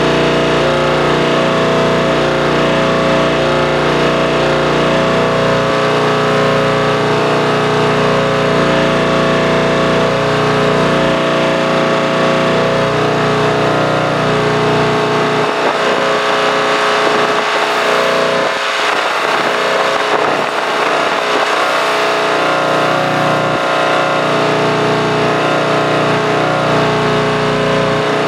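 An engine running steadily. For several seconds about halfway through, the low rumble drops away and a hiss rises before the engine sound returns.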